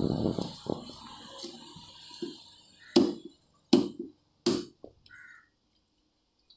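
Knife chopping through fish onto a wooden block: three loud sharp knocks a little under a second apart, with a smaller knock after them. Busy background noise with lighter knocks fills the first second or so, then fades.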